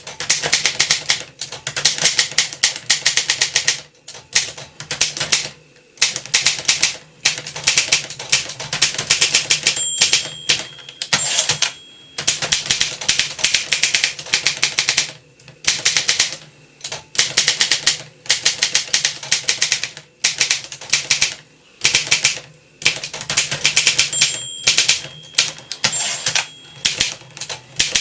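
1935 Olympia Elite manual typewriter being typed on quickly: dense runs of key strikes, each a second or two long, with short pauses between them. A few brief high ringing tones come about ten seconds in and again near the end.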